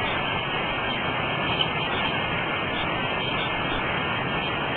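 Steady rushing of a creek's running water.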